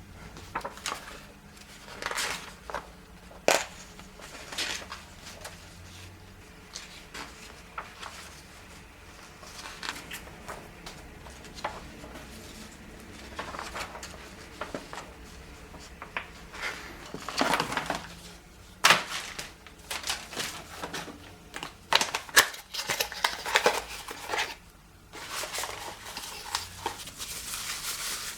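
Hands unpacking and handling the contents of the box: crinkling packaging with scattered clicks and knocks of plastic parts, and a longer stretch of rustling near the end.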